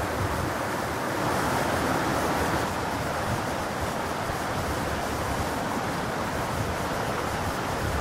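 Shallow, clear mountain stream babbling over rocks and pebbles: a steady, even rush of running water.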